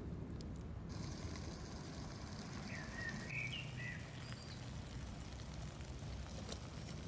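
Outdoor ambience: steady low background noise, with a short bird call of a few quick chirps about three seconds in.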